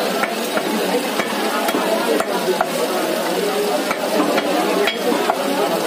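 A large butcher's knife tapping and cutting against a wooden chopping block as chicken is cut and skinned, short sharp knocks about twice a second over a steady hiss.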